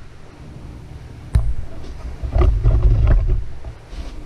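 Handling noise from a part of the plasma table being moved by hand: a sharp knock about a second in, then low rumbling and clunking.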